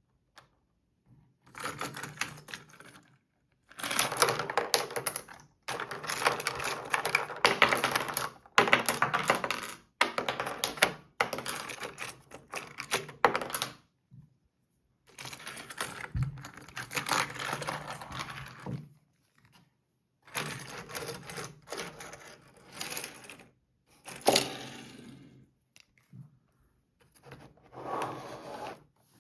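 Hard plastic toy playset parts clicking and rattling in repeated bursts of a few seconds, with abrupt silent gaps between them.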